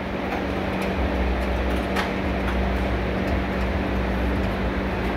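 Steady background hum and room noise, with a low rumble through the middle and a few faint clicks.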